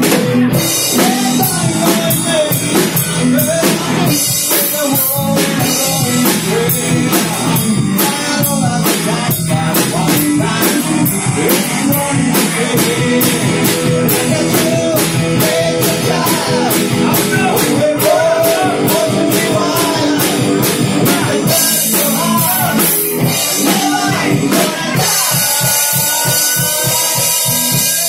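A live rock band playing loud: a drum kit keeping a steady beat under electric guitar and electric bass.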